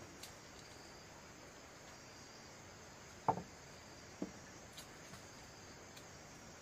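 Crickets or other insects chirping faintly and steadily, with a short sharp sound about three seconds in and a weaker one a second later.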